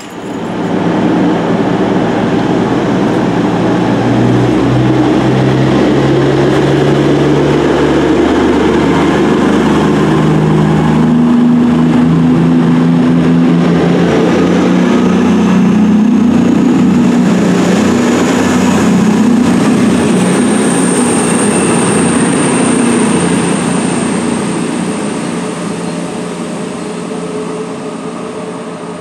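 CrossCountry Voyager diesel multiple unit pulling away close by, its underfloor diesel engines running loud and climbing in pitch in steps as it accelerates. The sound fades near the end as the train draws away.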